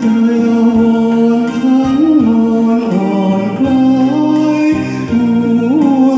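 A man singing a slow Thai song into a microphone over a karaoke backing track, holding long notes with small bends in pitch.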